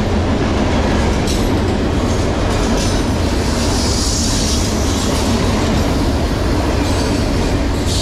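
Freight cars of a CSX manifest train rolling past close by: a steady, loud rumble of steel wheels on rail with clacks over the rail joints, and a higher hiss swelling briefly near the middle.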